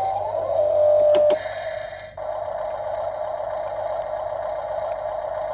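Small electric motor of a toy RC rear-loader garbage truck whining steadily as the rear lifter raises a toy trash bin to tip it into the hopper. It gets louder with two sharp clicks about a second in, cuts out briefly near two seconds, then carries on.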